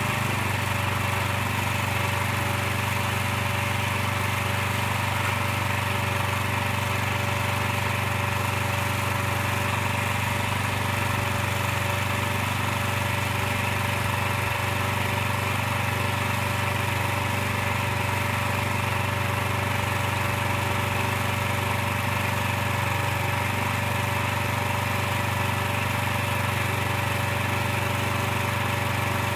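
Small engine mounted on a portable truck scale trailer, running steadily at a constant speed.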